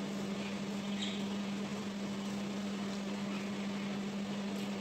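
Steady low hum of a running household appliance, one unwavering tone over a soft hiss, with a few faint small clicks.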